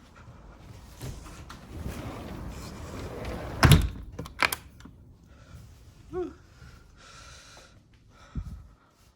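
A house door being opened and shut on coming in from outdoors: a loud thud a little over three and a half seconds in, a second knock just after, a short squeak, and another thump near the end.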